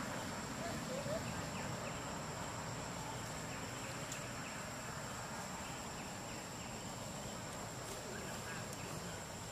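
Steady high-pitched insect drone over an even background hiss, with a couple of faint short chirps about a second in.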